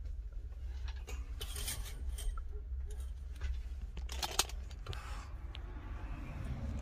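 A few soft clicks and rustles of a phone camera being handled and moved, the strongest cluster about four seconds in, over a steady low hum.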